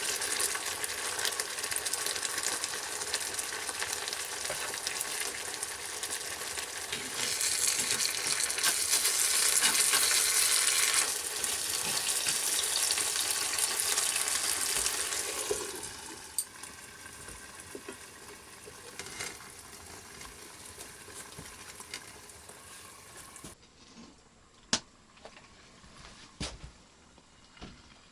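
Food sizzling as it fries in a hot pan, a dense steady hiss that swells for a few seconds and then dies down about halfway through. A couple of sharp clicks near the end.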